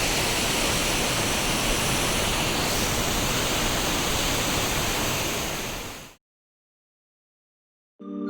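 Waterfall's steady rush of falling water, fading out about six seconds in. After two seconds of dead silence, marimba-like mallet music starts near the end.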